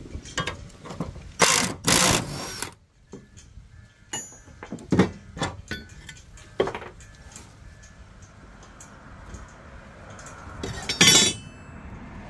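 Irregular metal clanks, knocks and scrapes of hand tools and parts on a ride-on mower's steel cutting deck while the blade spindle is worked on. The loudest clatter comes a couple of seconds in and again near the end.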